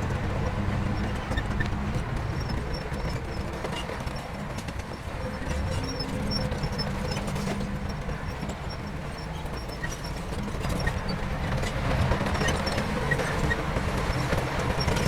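Heavy diesel earthmoving machinery running steadily, with a low engine rumble and scattered small knocks.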